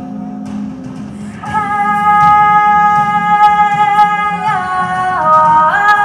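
Song accompaniment with plucked guitar. About a second and a half in, a loud melody line of long held notes comes in, stepping down in pitch twice and then back up near the end.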